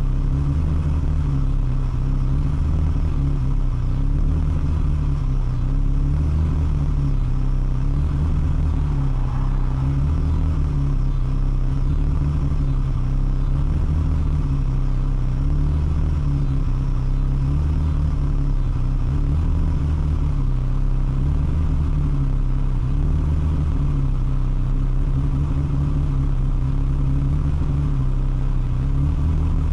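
Ferrari 360's 3.6-litre V8 idling roughly, its low note pulsing in a steady rhythm about every two seconds.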